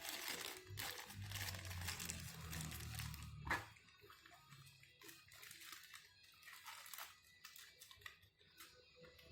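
Rustling and crinkling of toy packaging being handled, dense for the first few seconds and ending in one sharp click, then lighter scattered rustles and taps.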